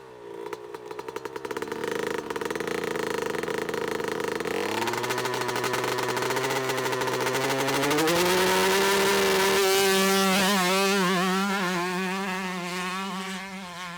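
Kawasaki motocross bike engine accelerating, its pitch climbing in two steps about four and eight seconds in, then holding high and wavering near the end.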